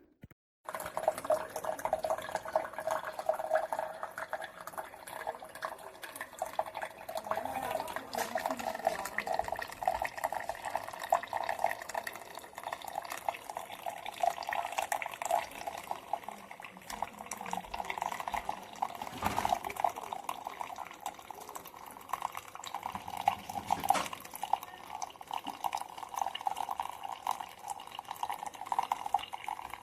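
Ninja Pod & Grounds coffee maker at work with a steady, crackly sound of liquid bubbling and trickling, with a couple of short ticks in the second half.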